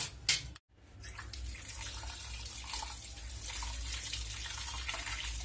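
Kitchen tap running into a steel bowl of grated potato in a stainless-steel sink as the shreds are rinsed. The water noise starts about a second in and runs steadily.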